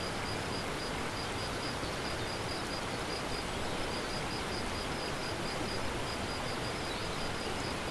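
Steady outdoor meadow ambience: an even hiss with a faint high chirp repeating evenly, about three times a second.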